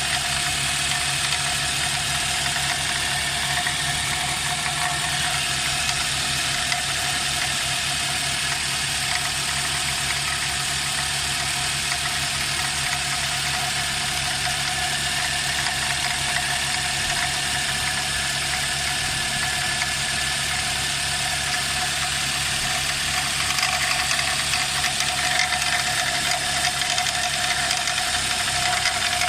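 Nissan X-Trail engine idling steadily with a constant high squeak from the accessory belt pulleys, which the owner traces to a worn belt tensioner pulley.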